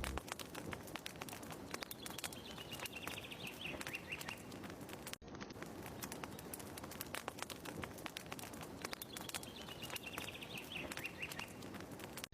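Fireplace ambience of dense, irregular crackling, with a bird's descending trill of chirps heard twice, a few seconds apart.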